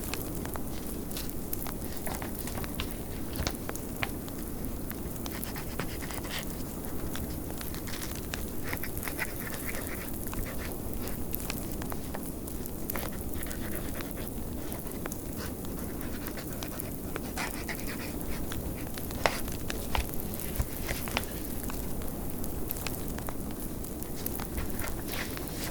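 Wood fire crackling in a fireplace, with irregular sharp pops, a few louder ones in the second half, over the steady rush of blizzard wind.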